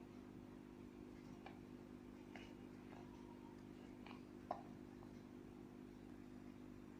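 Near silence: faint steady hum of room tone with a few light clicks, one a little sharper about four and a half seconds in.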